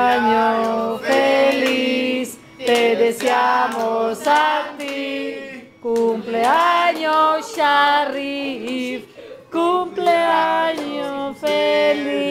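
Several people singing a song together in a small room, their voices held on long notes in phrases with short breaks between.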